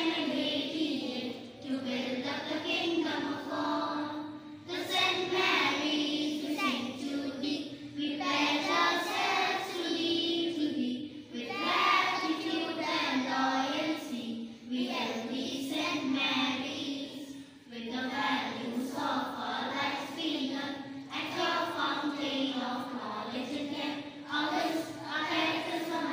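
A group of schoolchildren singing the school anthem together, in sung phrases with short pauses between them.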